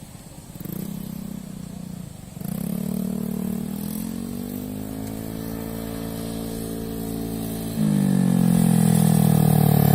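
Honda Vario 130 scooter engine being revved with the throttle. It steps up at about half a second, higher and louder at about two and a half seconds, and louder again near eight seconds, with the pitch slowly sagging after each rise.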